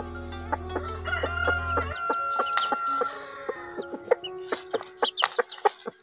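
Chickens clucking and a rooster crowing, with many short sharp taps throughout. A steady low hum cuts off about two seconds in.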